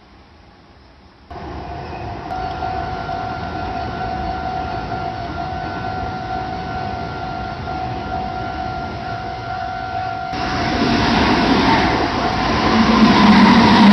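Railway level-crossing alarm ringing steadily, a Japanese crossing bell on the Meitetsu Nagoya Main Line. About ten seconds in, a train starts to pass through the crossing, and its noise grows loud toward the end and covers the bell.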